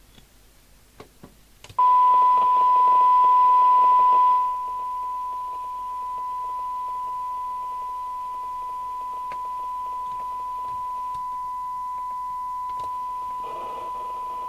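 Steady 1 kHz test tone played through the FM CB receiver during a SINAD sensitivity check: the signal generator's tone-modulated carrier, demodulated by the radio. A few clicks come first, then the tone starts sharply with hiss about two seconds in, drops in level a couple of seconds later, and the hiss comes back near the end.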